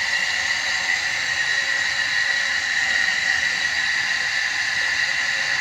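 Electric motor of a dowel-making machine running steadily, a constant high whine over a hiss.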